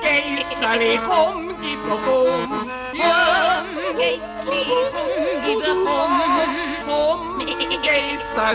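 Background music: a melody with strong vibrato over held chords.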